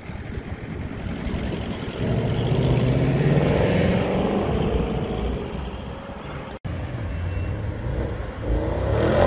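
Ford Mustang accelerating away, its engine and exhaust rising in pitch and loudest for a few seconds after a lower rumble. After a sudden cut, another car revs up near the end.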